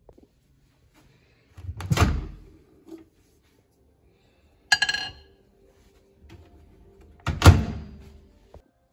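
Items being handled and set down while a dish is loaded: a dull thud, a short ringing clink like dishware, then a second, louder thud.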